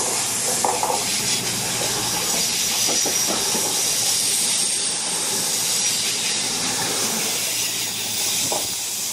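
Cross Country Class 221 Super Voyager diesel-electric multiple unit passing through a station at speed without stopping. It makes a steady rush of air and wheel-on-rail noise as the carriages go by close to the platform.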